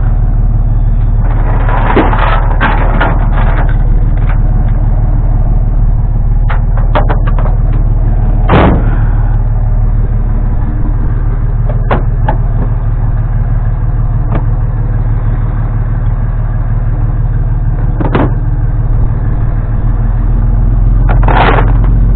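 A vehicle engine running steadily with a low, even hum, with scattered clanks and knocks over it.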